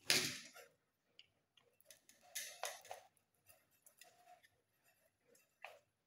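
Scattered soft clicks and scrapes of wire ends being fitted into the terminals of a plastic bulb holder by hand.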